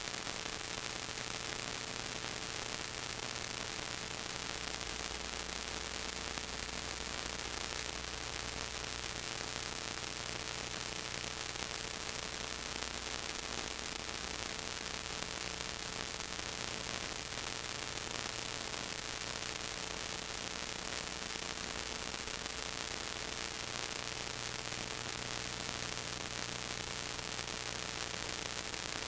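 Steady hiss with a faint hum: the empty sound track of a silent 8mm home movie transferred to DVD, with no recorded sound of its own.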